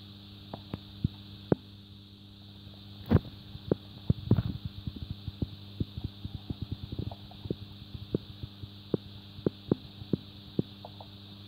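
Freshly caught tuna thrashing in the boat's hold, their bodies and tails knocking against the hull and each other: scattered sharp knocks, then a fast flurry of thumps about four seconds in that thins out again, over a steady low hum.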